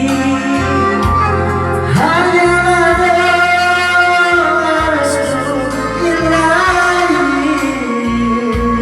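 Music: a slow melody of long, gliding notes over a low bass pulse, between sung lines of the song.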